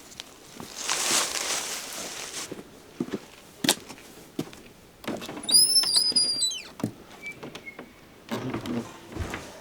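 A door hinge squeaking as a door swings, a drawn-out squeal that bends and falls in pitch, after a brief hiss and a few sharp knocks.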